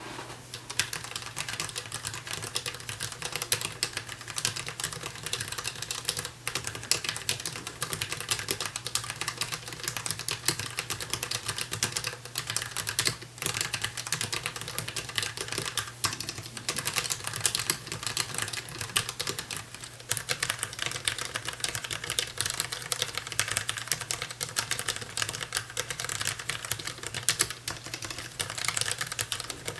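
Rapid continuous typing on a DAREU EK820 low-profile mechanical keyboard with Kailh low-profile red (linear) switches: a dense clatter of keystrokes with only a couple of brief pauses, over a faint steady low hum.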